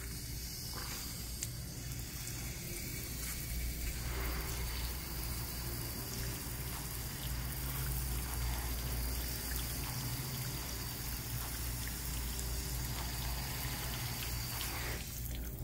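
Garden hose spray nozzle spraying water onto a car's side windows: a steady hiss of spray splashing on glass, fuller from about four seconds in.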